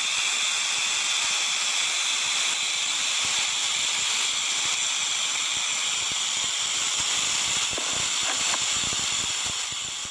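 Western diamondback rattlesnake shaking its tail rattle in a steady, high-pitched buzz that eases slightly near the end. It is the snake's defensive warning while coiled and threatened.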